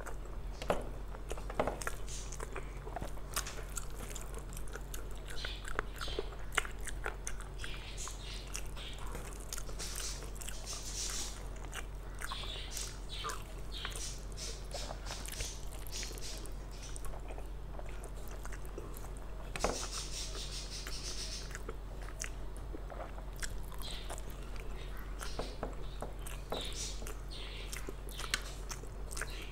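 Close-miked chewing and mouth sounds of a person eating rice and mutton curry, with the soft squish and clicks of fingers mixing rice and gravy on a steel plate. A steady low hum runs underneath.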